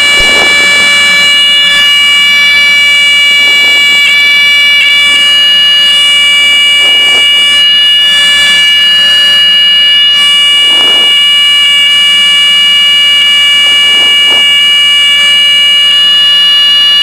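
Piper Seneca cabin in flight: the twin piston engines and propellers running steadily at cruise power, a loud, unchanging drone with a whine made of several steady tones.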